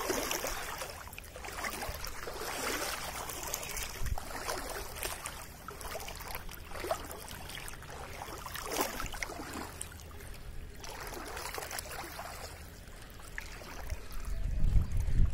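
Floodwater sloshing and lapping in irregular splashes, with wind rumbling on the microphone near the end.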